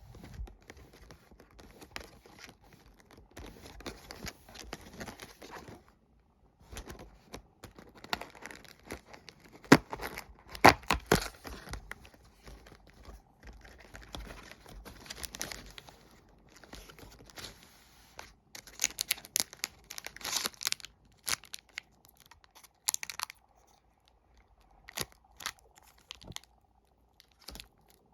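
Sticker-wafer packaging being torn open and handled: intermittent tearing, crinkling and crackling of wrappers in uneven clusters with short pauses. The loudest sharp crackles come about ten seconds in.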